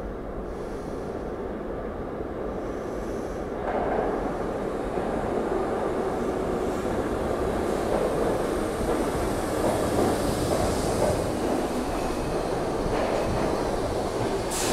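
R62A subway train pulling into an underground station. Its rumble grows louder about four seconds in and stays loud as the cars pass close by, with two faint high-pitched squeals in the first few seconds.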